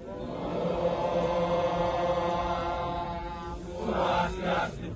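Kecak chant: voices holding one long, steady chanted note. Near the end it turns louder and breathier, then cuts off.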